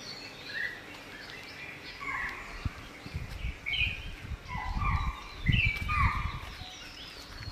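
Birds calling: a string of short chirps that slide down in pitch, loudest around the middle, with low rumbling thumps underneath.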